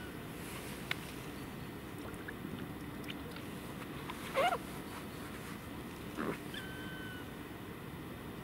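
A short pitched animal call about four seconds in that bends down in pitch, over a steady background hiss, with a few faint clicks and a short steady whistled note near the end.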